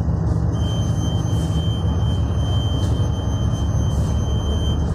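Tugboat's diesel engines running with a steady low rumble, heard from inside the wheelhouse. A steady high whine sounds over it from about half a second in until just before the end.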